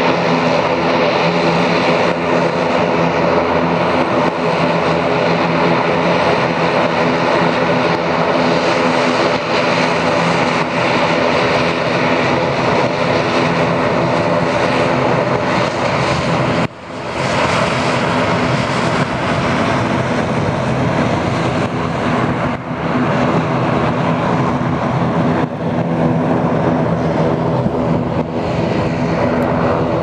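Twin-turboprop regional airliner's engines and propellers running steadily as it taxis, with a short drop in level about 17 seconds in.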